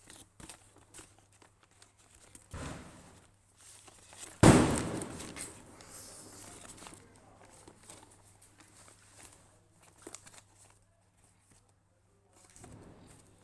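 Plastic blind-bag packaging being handled and torn open: scattered crinkles and rustles, with one loud sudden rip about four and a half seconds in that trails off over a second or so.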